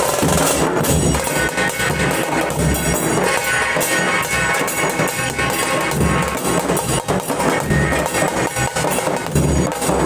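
Dhol drums beaten in a fast, dense, continuous rhythm.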